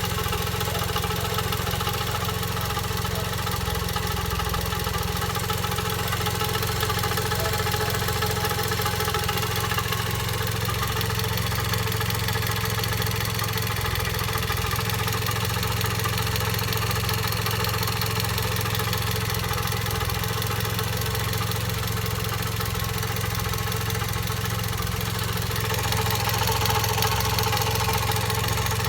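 Toyota Vios (second generation) engine idling steadily with a weird vibrating noise, which the owner puts down to a worn-out water pump assembly. It grows a little louder and harsher near the end.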